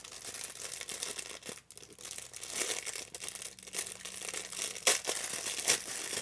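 Small clear plastic bag crinkling and rustling as it is handled and opened to get a tool out, with two sharper, louder crackles near the end.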